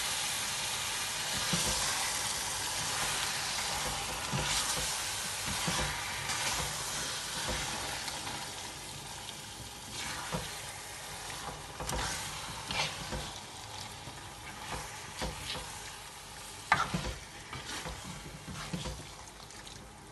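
Marinated chicken and onion masala sizzling in a large pot while a silicone spatula stirs and scrapes through it. The sizzle fades gradually, with scattered scrapes and knocks of the spatula against the pot and one sharper knock about three-quarters of the way through.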